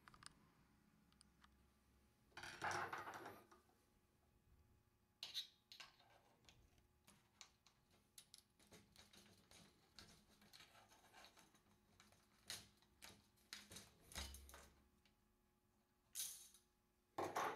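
Faint scattered metallic clicks and scrapes of needle-nose pliers and a screwdriver working on the cable spool of a Columbia automatic drywall taper, freeing the cable ball from its slot. A longer, louder scrape comes about two and a half seconds in, and a few sharper clicks come near the end.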